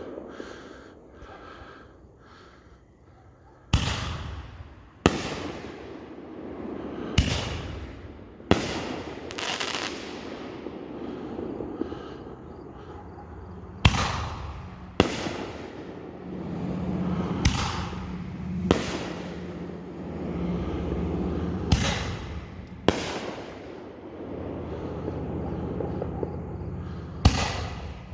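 Planet X "Alien Eggs" aerial firework shells launching and breaking overhead: a series of sharp bangs, mostly in pairs about a second apart, each trailing off into hiss and crackle. The breaks are described as "nice breaks."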